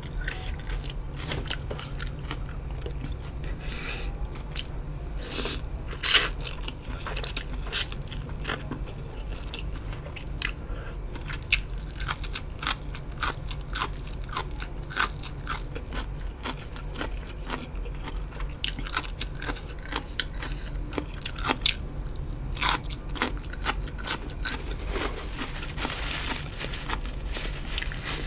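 Close-miked eating: crisp crunchy bites and chewing of a meal of rice noodles in curry with fresh raw vegetables and chicken feet, with a sharp loud crunch about six seconds in and another near the end.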